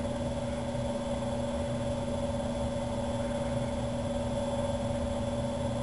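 A steady mechanical hum with a constant low rumble and two unchanging tones, one low and one higher. Nothing starts or stops.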